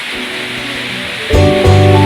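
Steady rush of a waterfall. About a second in, loud background music with guitar starts and covers it.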